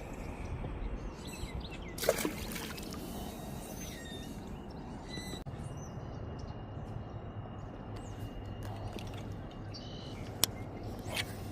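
Lakeside ambience of water sounds and faint bird calls, with a loud sharp knock about two seconds in and two short clicks near the end. A low steady hum comes in about halfway through.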